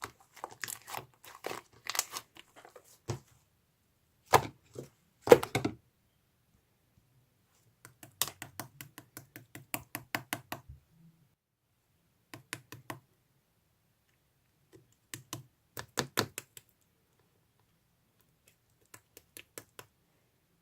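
Bursts of rapid, sharp clicks and taps in short groups, some running at about eight to ten a second, with pauses of a second or two between groups.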